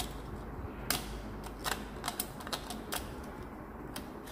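A retractable utility blade cutting and scraping old foam surround residue off the rim of a Wharfedale Diamond 9.1 woofer's frame. It makes an irregular run of short, sharp clicks and scratches.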